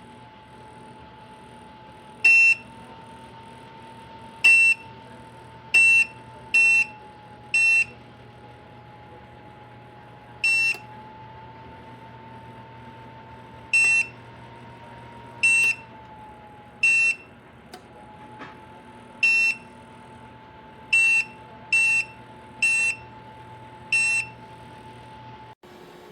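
Electric tower space heater's control panel beeping as its buttons are pressed: about fourteen short, high beeps at uneven intervals, over a faint steady hum.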